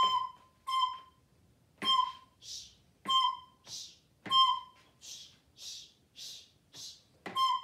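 Recorder playing a rhythm exercise on one note: a held note ends just after the start, then short tongued notes about a second apart alternate with whispered 'sh' shushes that count out the rests, including four shushes in a row. Near the end come quicker short notes about half a second apart.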